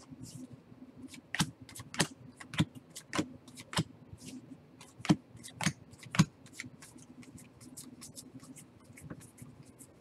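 Trading cards being handled and flipped through: a string of sharp, irregular snaps and flicks as cards slide against one another, louder and denser for about the first six seconds, then softer ticks.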